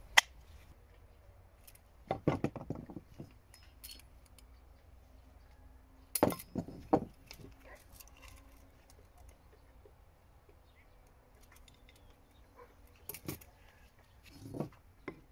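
Hand tools and a steel axe head being picked up and set down on a wooden table: a few scattered knocks and clinks in small clusters, with quiet stretches between.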